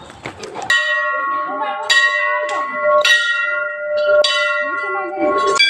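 Brass Hindu temple bell rung by hand: five strikes a little over a second apart, each one ringing on with clear steady tones until the next.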